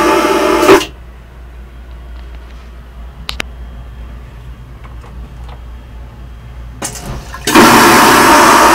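Train vacuum toilet flushing. A loud rushing suction cuts off with a sharp thump under a second in, leaving a quiet stretch with a few faint clicks. The loud rushing suction starts again suddenly about seven and a half seconds in.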